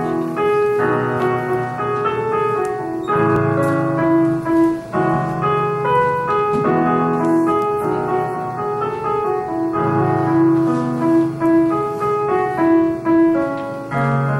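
Electronic keyboard played with a piano sound: a melody line over held lower chords that change every one to three seconds.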